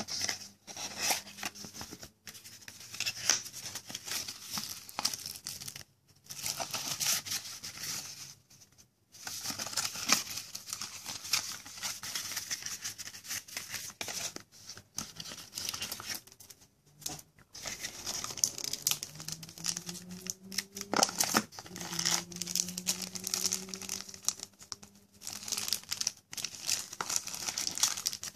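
Hands handling a cardboard smartphone box and its packaging: the inner tray sliding out, and plastic wrapping around the accessories crinkling and rustling. The sound comes in bursts with brief pauses.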